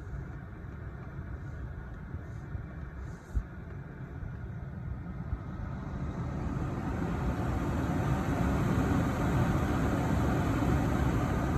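Jaguar XJ's air-conditioning blower running, a steady rush of air that grows louder about six to eight seconds in as the fan speeds up. A single short knock a little after three seconds.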